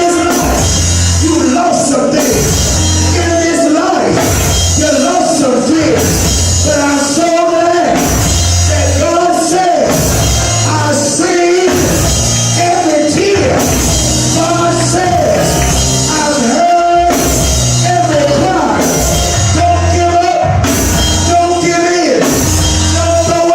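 A band playing a song with a singer's voice on top: a steady drum beat with cymbals, bass notes changing every second or two, and a sung melody line.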